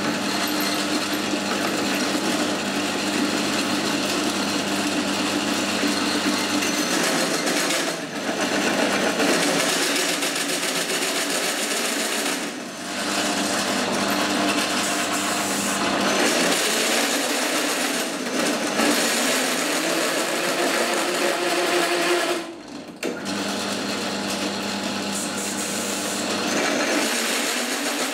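Bench pillar drill running at low speed with a 26 mm bi-metal hole saw cutting through 5 mm mild steel plate: a steady motor hum under a gritty metal-cutting noise. The cut dips briefly a few times, most sharply about three quarters of the way in; the small drill is underpowered for the job and jammed a couple of times during the cut.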